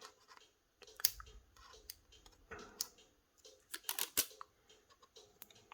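Small, scattered clicks and taps of a repair tool against smartphone parts as a flex cable connector is worked into its socket. A cluster of sharper clicks comes about four seconds in.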